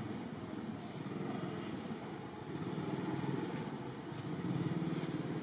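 Motor vehicle engine running, a steady low hum that stays at an even level throughout.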